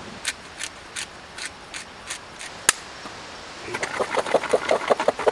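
A series of about eight light, sharp ticks at roughly three a second, then diced potato cubes rattling in a small metal camping pot shaken by hand, a fast run of clatters that is the loudest part.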